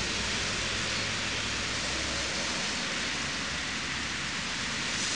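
Steady rain falling, an even hiss, with a low hum underneath that fades out about two seconds in.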